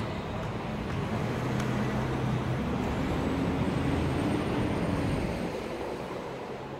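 Traffic on a city street: a steady rumble with a low hum that swells in the middle and eases off near the end.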